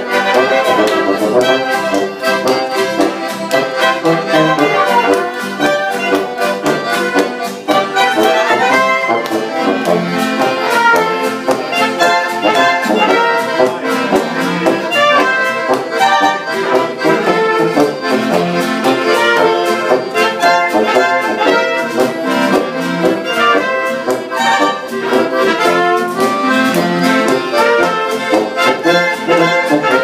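Live German folk band music: accordion, clarinets, trumpet, tuba and acoustic guitar playing a tune together over a steady beat.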